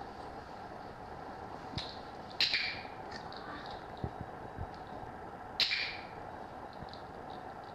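Dog-training clicker clicked twice, about three seconds apart, each a sharp click-clack marking the dog's trick, over a steady low hum.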